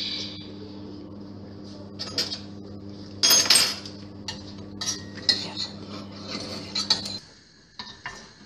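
A utensil clinking and scraping against a stainless steel saucepan as frying bacon and salami are stirred, a run of sharp clinks with a louder clatter about three seconds in. A steady low hum runs underneath and stops about seven seconds in.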